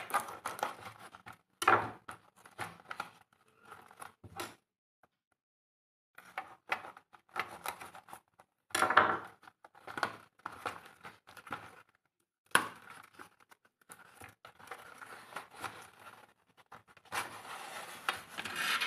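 A cardboard product box being cut and pried open with a metal blade: irregular bursts of scraping, tearing and rustling of cardboard and tape, with a brief pause about five seconds in and a longer continuous rustle near the end as the flap comes open.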